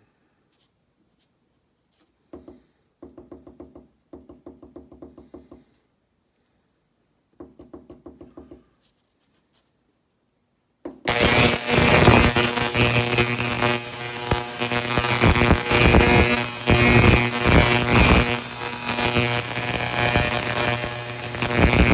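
Ultrasonic cleaner starting up about halfway through, then running with a loud, harsh buzz made of many steady tones over a hiss that reaches very high. Before it starts there are only a few faint short bursts of rapid pulsing.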